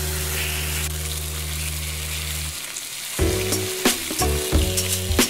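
Floured thin pork loin slices sizzling in salad oil in a frying pan over high heat. Background music holds a low chord for about the first two and a half seconds, then picks up a beat.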